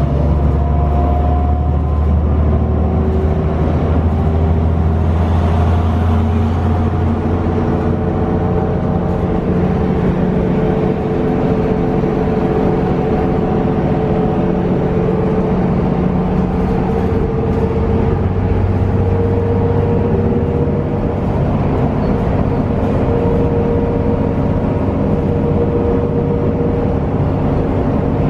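Iveco Cursor diesel engine and ZF automatic gearbox of a Heuliez GX 317 city bus, heard from inside the passenger cabin while the bus drives along at speed. Steady engine drone with tones that drift slowly in pitch, over road and tyre noise.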